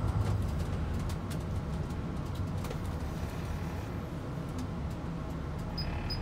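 Cabin sound of an MCI D4500CT coach slowing in traffic: a steady low drone from the engine and drivetrain, with light clicks and rattles of the interior fittings. Two short high beeps come near the end.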